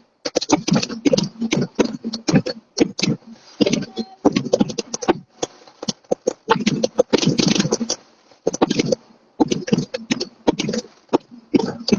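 Fireworks going off: rapid runs of bangs and crackling pops in bursts about a second long, one after another with short pauses.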